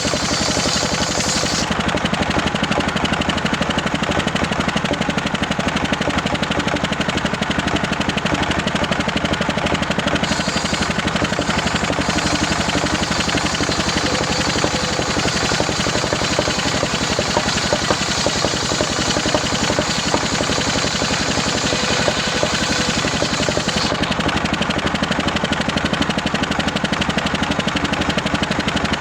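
Engine-driven homemade circular saw running steadily with a rapid, even engine beat. A higher hiss over it drops away about two seconds in, returns briefly around ten seconds, then fades again.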